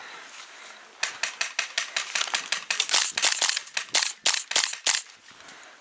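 Airsoft gunfire: a rapid, irregular string of sharp shots, several a second, starting about a second in and stopping about a second before the end.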